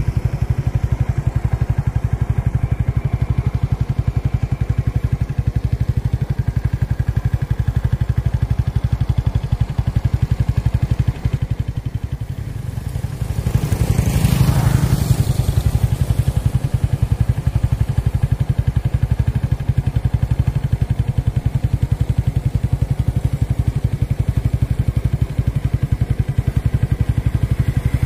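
Motorcycle engine running steadily while riding along, with a louder swell about halfway through.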